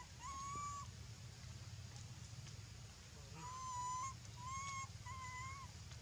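Young macaque giving high, whistle-like coo calls: one short call just after the start, then three more in quick succession in the second half.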